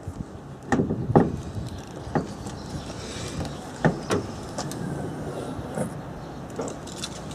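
Scattered light clicks and knocks, about seven in all, as the Toyota MR2 Spyder's rear engine lid is unlatched and lifted open on its gas strut, over a steady faint background hiss.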